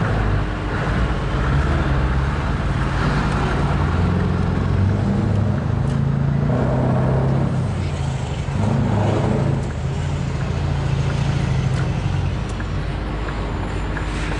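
Scania V8 diesel truck engine heard from the cab, pulling hard as the truck accelerates. The engine note shifts in pitch, and the sound briefly drops about half a second in and again near ten seconds in.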